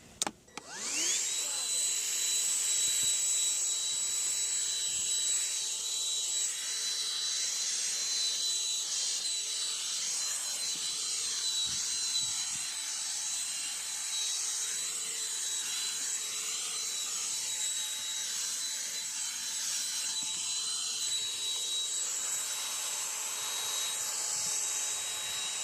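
Black & Decker 16-volt lithium cordless handheld vacuum (CHV1410L) switched on, its whine rising to speed about half a second in. It then runs steadily with a high-pitched whine and rushing air through the extended crevice tool, and begins to wind down at the very end as it is switched off.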